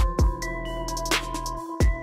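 Electronic background music with a steady beat of drum hits over deep bass and held synth notes.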